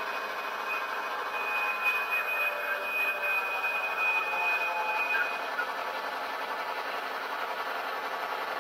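HO scale model diesel switcher with a DCC sound decoder, its diesel engine sound playing through the locomotive's small speaker as it moves slowly along the track. A steady high-pitched whine sounds from about one to five seconds in.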